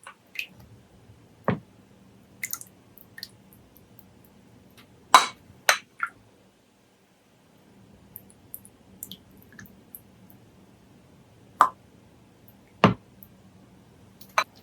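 Scattered clinks and knocks of dishes and utensils being handled, about seven separate sharp taps with quiet between them.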